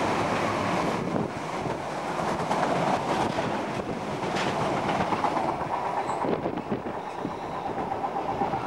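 Freight train of bogie tank wagons rolling past at speed, a steady rumble of wheels on rail that grows fainter near the end as the last wagon draws away.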